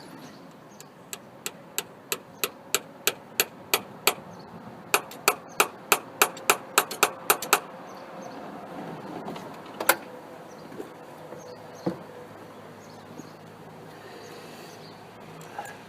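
Hammer striking metal in a run of about twenty sharp taps, roughly three a second with a short break partway, then a few single strikes.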